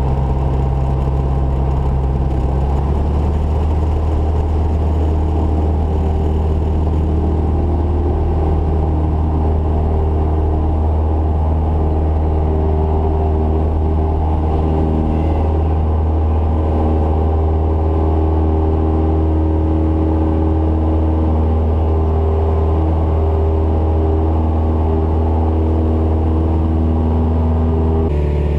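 Cessna 172's four-cylinder piston engine and propeller running steadily, a loud even drone heard from inside the cabin. Its tone shifts slightly about three seconds in, and changes abruptly near the end.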